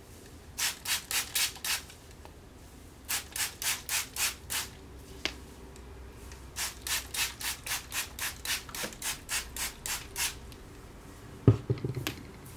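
Trigger spray bottle spritzing water onto hair in three quick runs of several sprays each, about four sprays a second. A single thump near the end.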